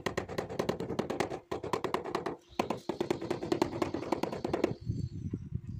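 Rubber mallet tapping rapidly on a ceramic floor tile, about eight to ten light blows a second, bedding the tile into fresh adhesive. It pauses briefly twice and stops near the end.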